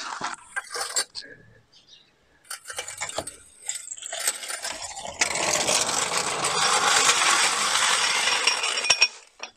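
Metallic clinks and rattles of a trolley jack and its handle as the car's rear is lowered, followed by a steady hiss lasting about four seconds.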